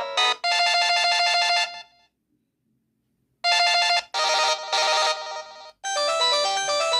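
LG KG225 mobile phone playing its built-in electronic tones through its speaker: a short melody, then a pause of about a second and a half, two more short jingles, and a longer tune starting near the end.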